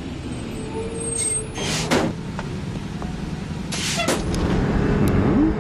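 A motor vehicle's engine running steadily in street traffic, with two short hisses about two and four seconds in.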